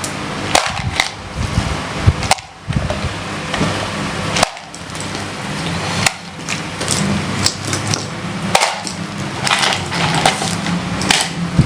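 Irregular small clicks and rattles of loose capacitors and other small electronic parts being picked up, handled and set down, over a steady low hum.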